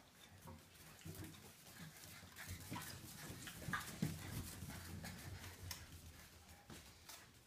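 Bullmastiff puppies scampering on a tile floor, their claws making many light, irregular clicks, with a few brief whimpers.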